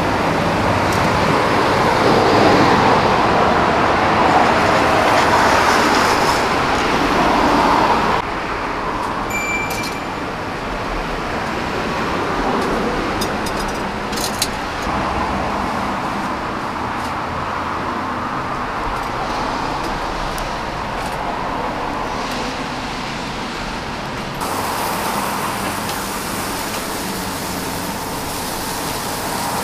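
Steady road traffic noise, with a few sharp metallic clicks about halfway through from tongs and wire grilling baskets being handled at a charcoal grill.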